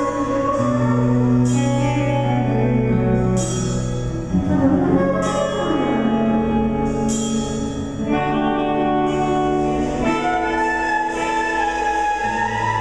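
A small band playing: a Pearl drum kit with cymbal strikes every second or two under held melody notes and a steady low bass line.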